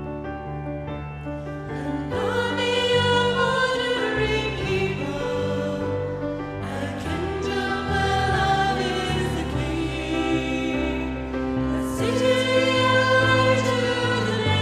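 Worship song sung by voices over keyboard accompaniment; the keyboard plays alone at first and the singing comes in about two seconds in.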